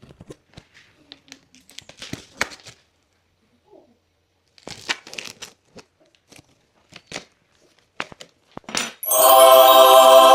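Packaging being handled: crinkling and tearing with scattered clicks and taps, in short bursts. Music with held notes starts about nine seconds in.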